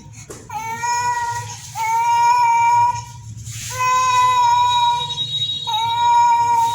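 Young infant crying in long, even wails, four of them, each lasting a second or more with a short break for breath between. A faint steady high-pitched tone sounds under the second half.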